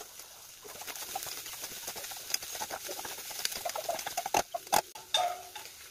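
Ground beef and green bell pepper frying in a pot, a utensil stirring and scraping through them with many small clicks over a sizzling hiss, and two sharp knocks of the utensil on the pot near the end.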